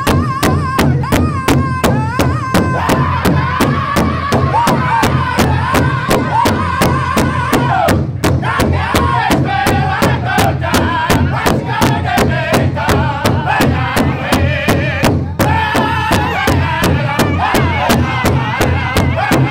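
Powwow drum group: several drummers strike a large hide-covered drum in unison, about three to four beats a second, while the men sing a high-pitched song together. The singing breaks off briefly twice while the drumbeat carries on.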